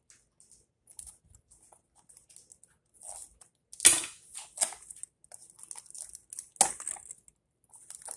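Cardboard toy box being handled and worked open by hand: light rustling and scraping of the card, with a sharp crack about four seconds in and another a couple of seconds later.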